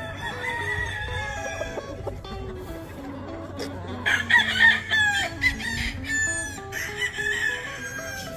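Gamefowl roosters crowing and clucking: a long drawn-out crow near the start and a louder crow about four seconds in.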